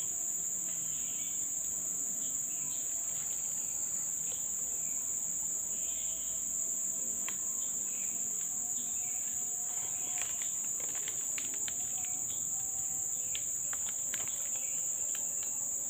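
A steady, high-pitched chorus of insects that does not let up, with scattered small clicks and ticks in the second half.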